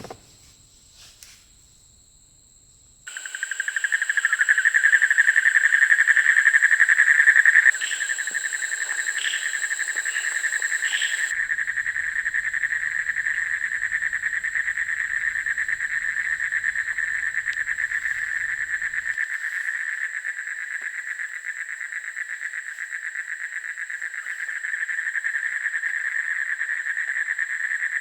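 Night chorus of insects: a dense, fast trill with a steady high whine above it, starting abruptly about three seconds in.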